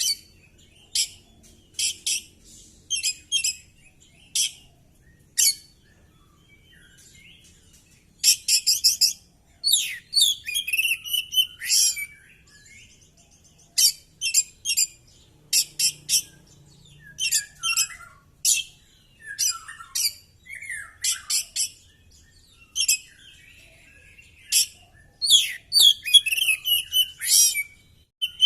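Oriental magpie-robin in full song: loud bursts of sharp, rapid notes and whistled phrases, broken by short pauses.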